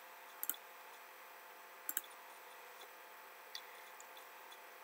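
Computer mouse clicking: a quick double click about half a second in and another about two seconds in, then a couple of fainter single clicks, over a faint steady room hiss.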